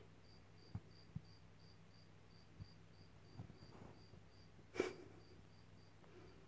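Near silence: a low steady hum with a faint high chirp repeating about three times a second, a few tiny ticks, and one short knock just before five seconds in.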